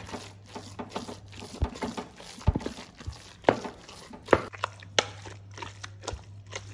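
Wooden spoon churning thick, grainy malai (clotted cream) in a metal pot, with scraping and irregular knocks of the spoon against the pot, sharpest near the middle. It is cream being churned into butter by hand, already gone granular.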